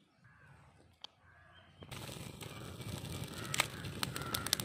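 Faint rustling of dry twigs and grass being handled, then about two seconds in a fire of dry grass and twigs catching and crackling, with sharp snaps growing more frequent near the end.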